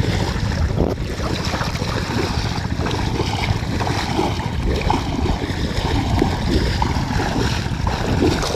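Wind buffeting the microphone over irregular water sloshing and splashing around the legs of men wading through shallow river water while dragging a fishing net.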